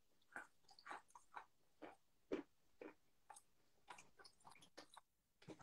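Close-up crunching and chewing of a hard, brittle lump of chalk: a run of short, crisp crunches, two or three a second.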